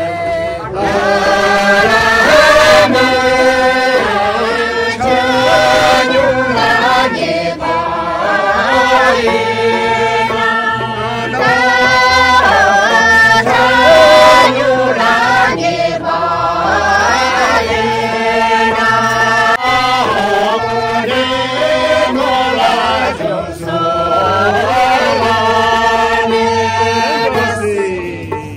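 Men and women singing a Bhutia folk song together in chorus, in phrases, with a plucked dramyin (long-necked Sikkimese lute) and a steady low beat underneath, for a circle dance.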